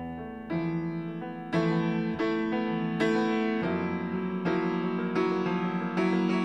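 Jazz piano trio recording: piano chords struck about every half second to a second over a bass line, growing louder about a second and a half in.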